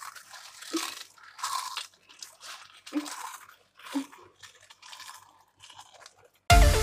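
Potato chips crunching as they are bitten and chewed fast, in irregular bursts about once a second. Loud electronic dance music cuts in suddenly near the end.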